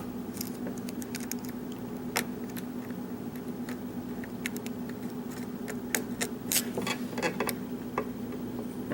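Metal hook pick clicking and scraping against the pins inside a pin-tumbler lock during single-pin picking, in scattered light ticks that come thicker about six to seven and a half seconds in.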